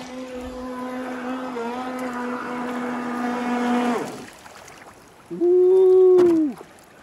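Electric motor of a Traxxas Blast RC boat running on the water with a steady whine, which rises slightly and then cuts off about four seconds in as the throttle is released. About a second later it gives a short, louder, higher-pitched burst of whine that rises and then drops away.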